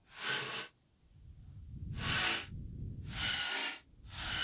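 Cordless drill driving decking screws into a pine board frame, running in four short bursts of about half a second each.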